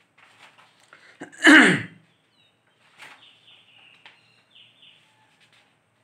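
A man sneezing once, loud and sudden, about a second and a half in, his voice dropping in pitch through the sneeze. Faint high thin squeaks follow a couple of seconds later.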